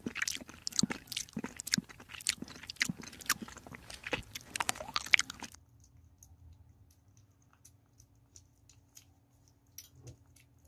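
Kitten chewing and smacking on wet chunks of cat food: rapid, wet clicking bites that drop sharply to faint scattered ticks about halfway through.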